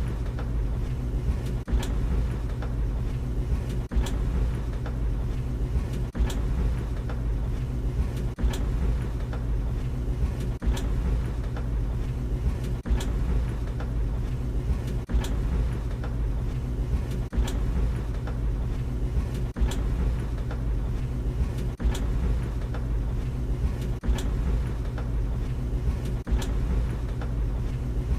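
Tumble dryer running: a steady low motor hum and drum rumble, with a regular knock about every two seconds as the drum turns.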